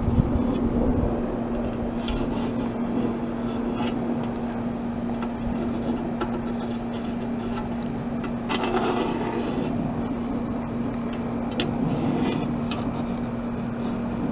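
Steady machine hum on one constant pitch, with scattered light clicks and a brief scrape about nine seconds in, typical of a metal straight edge and marker being handled against an aluminum shovel blade.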